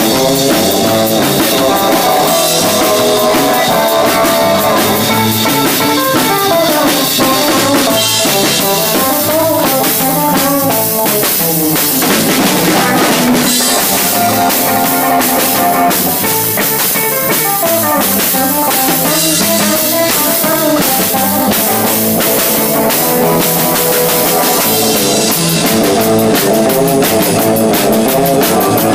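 Live instrumental rock band: electric guitar playing the lead over bass guitar and a drum kit keeping a steady, driving beat. The cymbals get busier near the end.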